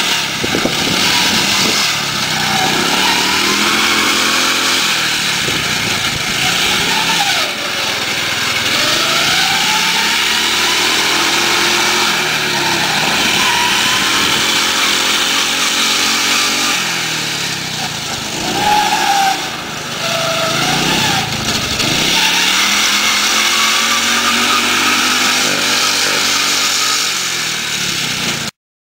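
Small riding lawnmower engine running hard, its pitch rising and falling over and over as the mower is revved, driven fast and popped into wheelies. The sound cuts off suddenly near the end.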